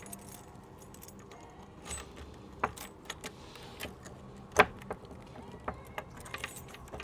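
Keys jangling and clicking as the locks on a trailer tongue box are worked, with a few sharp metallic clicks scattered through, the loudest about two-thirds of the way in.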